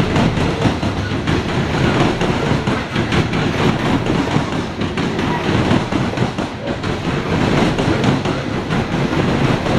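Steel coal hopper cars of a freight train rolling past close by: a steady, loud rumble of steel wheels on rail, with a run of clicks as the wheels pass over rail joints.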